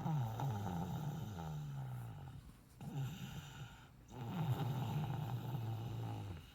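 Someone snoring hard in their sleep: two long drawn-out snores with a buzzing pitch that slides down, and a short one between them.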